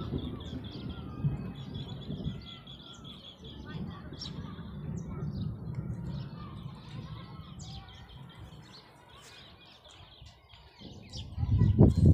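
Birds chirping and calling over a low rumbling noise; the rumble sinks low about ten seconds in and comes back loud near the end.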